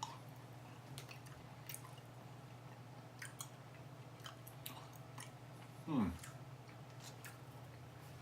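A person quietly chewing a firm, chewy sour apple candy straw, with small wet clicks of the mouth. About six seconds in there is a short falling "mm" from the voice.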